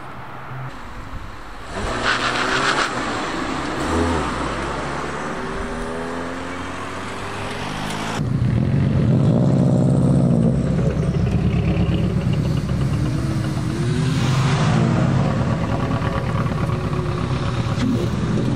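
Tuned cars' engines revving as they pull away, with a short loud burst of revs about two seconds in. From about eight seconds on, a louder engine runs steadily.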